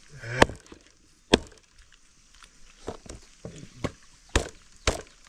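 Sharp chopping blows: two single hard strokes, then, from about halfway through, a steady run of strokes at about two a second.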